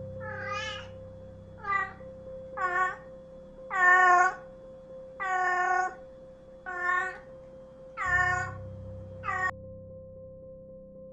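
Domestic cat meowing repeatedly: eight separate high, clear meows about a second or so apart.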